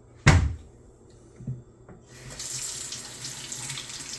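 A sharp knock, then a couple of lighter knocks, and about two seconds in a tap is turned on and water runs steadily with a hiss.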